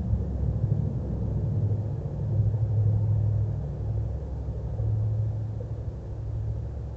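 A low, steady rumble with a hum in it, swelling and easing a little.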